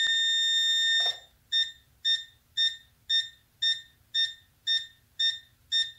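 An RC transmitter beeping while binding to a Blade mCX2 helicopter. It gives one long high beep lasting about a second, then a run of short beeps about twice a second, the signal that it is in bind mode.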